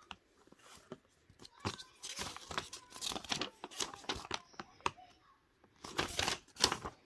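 Crinkling and tearing noises in a run of quick bursts, dense from about a second and a half in to five seconds, then again about six seconds in.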